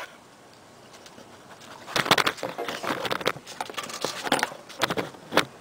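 Irregular clicks and rustling from a hand picking up and moving a beeswax and mullein-leaf candle on a table, starting about two seconds in.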